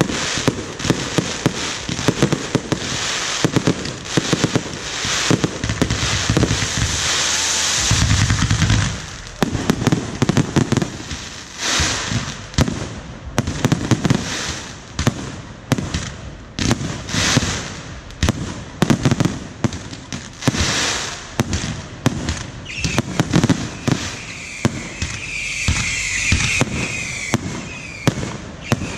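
Fireworks display going off in a rapid, irregular string of sharp bangs and crackling bursts. A sustained rushing hiss with a low rumble runs about a quarter of the way through, and a shrill wavering whistle joins the bangs near the end.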